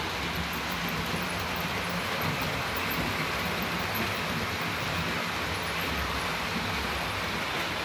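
Model diesel locomotive and its passenger coaches running past on the layout's track, a steady running rumble with no breaks.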